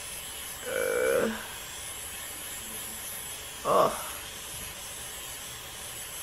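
Flawless battery-powered facial hair remover running with a steady, faint high whir as it is worked over the eyebrow hairs. Two brief vocal sounds break in, about a second in and again near four seconds.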